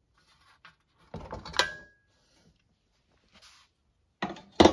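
Clinks, scrapes and knocks of metal parts being handled on a wooden workbench as the cover is taken off a motorcycle muffler. About a second and a half in there is one sharp metallic clink with a brief ring, and there are heavier knocks near the end.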